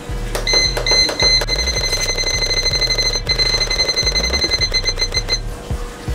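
Noxxa electric pressure cooker's control panel beeping as the time-setting button is held to scroll the cooking timer up to 45 minutes. A few short high beeps give way to a long steady beep with one brief break, which stops a little past five seconds in.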